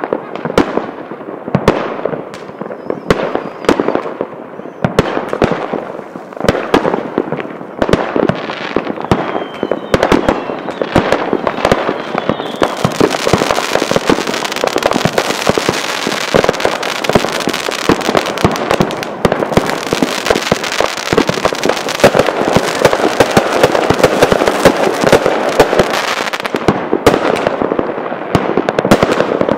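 Fireworks: rockets and aerial shells banging in quick, irregular succession. From about twelve seconds in, a dense hiss fills the gaps between the bangs until shortly before the end.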